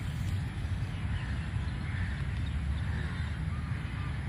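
Crows cawing now and then in the background over a steady low rumble.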